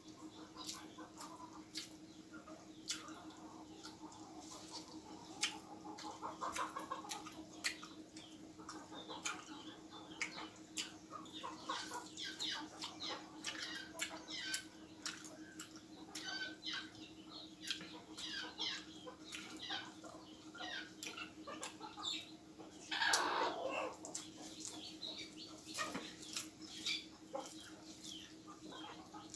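Close-up eating sounds: wet chewing and lip-smacking as rice and curry are eaten by hand from a steel plate, many short clicks throughout over a steady low hum. A louder noise lasting about a second comes roughly three-quarters of the way through.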